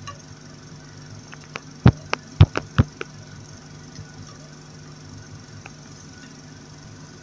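A black plastic slotted spatula knocking and scraping against a nonstick frying pan, six or seven quick knocks about two to three seconds in, while sliced garlic is stirred in oil. A steady low hum runs underneath.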